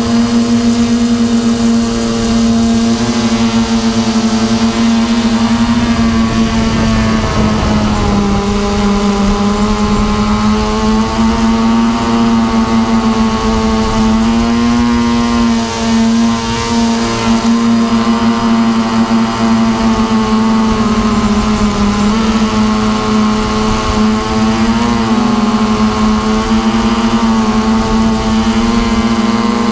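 Quadcopter drone's electric motors and propellers running with a steady buzzing hum, heard up close from the drone's own onboard camera. The pitch wavers and shifts a little as it manoeuvres, most noticeably about eight seconds in, over a low rushing noise.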